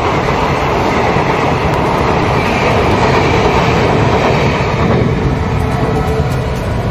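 Passenger train coaches running past at close range: a steady, loud rumble of wheels on rails.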